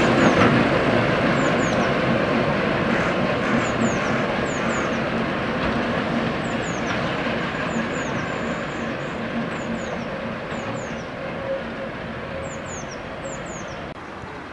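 Class 08 diesel shunter's English Electric six-cylinder engine running as the locomotive draws away, its sound fading steadily. Short high chirps, often in pairs, sound over it throughout.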